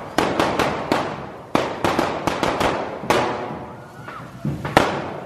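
A rapid, irregular string of about a dozen firecracker bangs, each trailing off briefly. They come from the carretilles, spark-spraying fireworks carried by devil dancers. The bangs are thickest in the first three seconds and more spaced out near the end.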